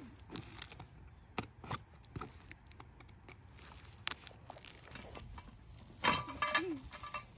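Box cutter slitting packing tape and cardboard on a shipping carton, a run of faint scrapes and clicks. Near the end, a louder clatter as the cardboard is opened and the boxed poles are handled.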